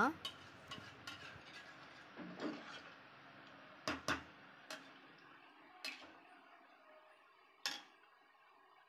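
A metal perforated spoon clinking and scraping against the side of an aluminium pressure cooker while stirring rice in water: a handful of separate faint knocks, two close together about four seconds in.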